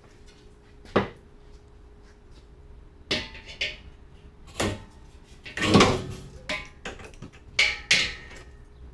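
Metal clanks and knocks from hand tools and the exhaust as the rear muffler is worked free of its rubber hangers: about six separate sharp strikes, the loudest cluster a little past the middle.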